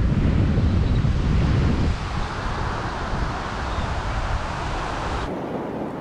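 Ocean surf washing on a beach with wind buffeting the microphone; the buffeting is heavy at first and eases about two seconds in, leaving the wash of the waves.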